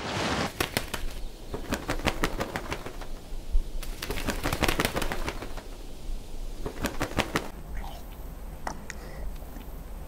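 Hawk nestlings beating their wings in a twig nest: a long run of quick, irregular feathery flaps and rustles that dies down about three quarters of the way through, with a few faint high calls after. It opens with a brief wash of wind and sea.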